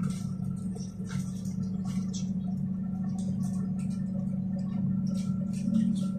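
NefAZ 5299 city bus's Weichai WP7NG260E51 natural-gas engine idling, a steady low hum heard from inside the passenger cabin, with irregular light clicks and rattles over it.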